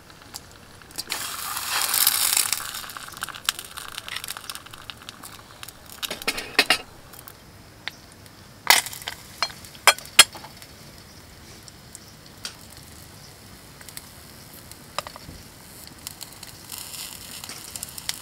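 Sausages and eggs frying in a camp frying pan on a portable gas stove: a loud burst of sizzling hiss about a second in, then scattered sharp clinks and clicks of metal utensils against the pan, the loudest about halfway through.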